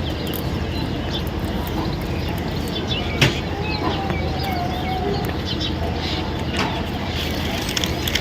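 Baby parrots giving short, high chirps over a steady low rumble, with one sharp click about three seconds in.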